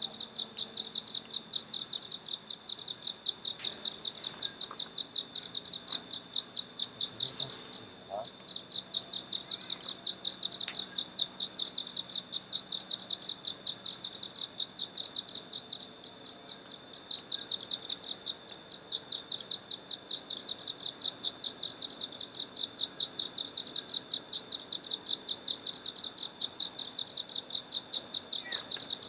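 Insects calling: a rapid, evenly pulsed chirp repeating steadily, over a continuous high-pitched buzz.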